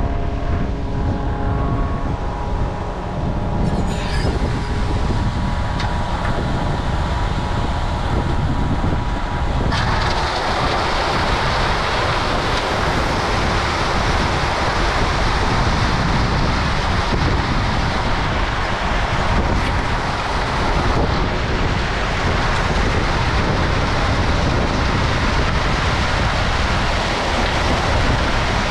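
Concrete mixer truck discharging its load: the diesel engine runs steadily with the drum turning, and about ten seconds in a loud, steady rush of concrete sliding down the chute joins it.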